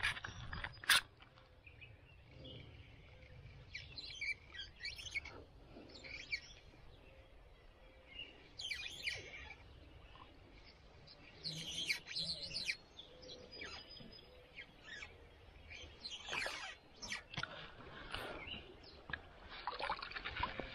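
Several songbirds chirping and singing in scattered short calls. Two sharp clicks come in the first second, and right at the end a hooked rainbow trout splashes at the surface.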